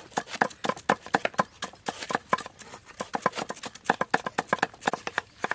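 Meat cleaver chopping lemongrass stalks on a round wooden chopping board: a quick, steady run of knocks, about four to five a second.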